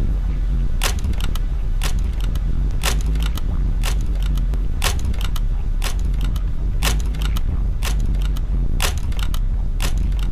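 Lamp switch clicks about once a second, each strong click trailed by fainter, out-of-step repeats of itself, over a steady low hum.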